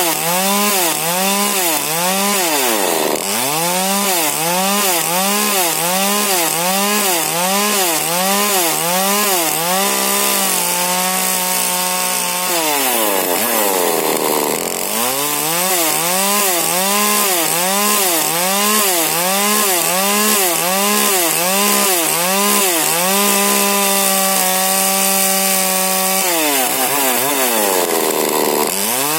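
Husqvarna 40cc two-stroke chainsaw with a modified exhaust and an 18-inch Stihl bar, cutting wood at high revs. The engine pitch rises and falls about one and a half times a second as the saw works the cut, with two steadier stretches. Three times it drops sharply and climbs back.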